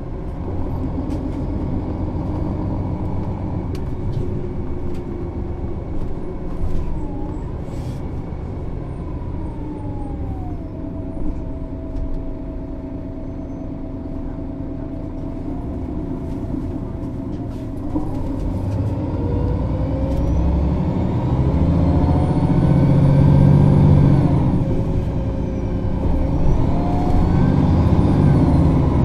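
MAN Lion's City NÜ 273 city bus's diesel engine and Voith automatic gearbox running under way. Through the first half the engine runs at low speed with a whine that drops and then holds steady. From about two-thirds through the engine grows louder, with rising and then falling whines as the bus pulls away and picks up speed.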